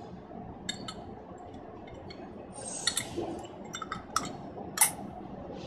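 Small metallic clicks and clinks of door-knob lock parts being handled and fitted back together, with the sharpest click a little before the end.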